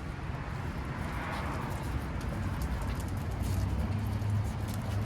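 Steady low rumble of outdoor background noise, with faint scattered ticks and scuffs.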